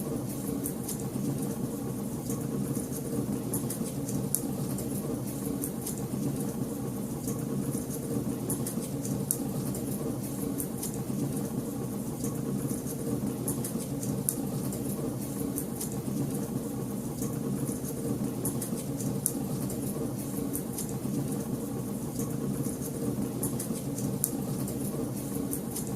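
Wood fire crackling, with many small, irregular pops and snaps over a steady low hum.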